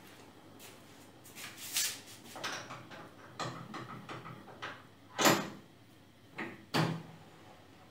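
A series of metal knocks and clunks from parts of a Colchester metal lathe being handled while the machine is stopped, the two loudest about five seconds in and near the end.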